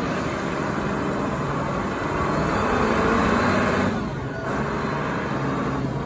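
Engine of a large Caterpillar forklift running as the forklift drives and turns, a steady engine sound that swells a little in the middle and eases off about four seconds in.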